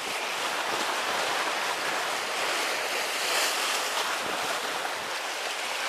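Steady wash of sea waves breaking against the concrete tetrapods of a breakwater, with wind on the microphone.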